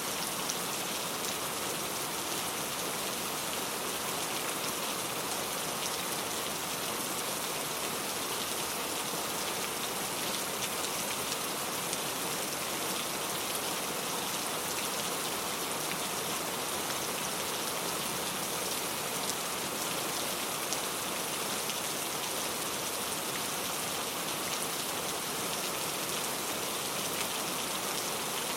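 Steady rain falling, an even hiss of many drops with faint patters, unchanging throughout.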